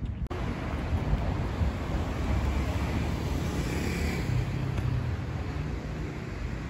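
Street traffic: a car passing on the road, swelling to a peak around the middle and easing off, over a low, uneven rumble.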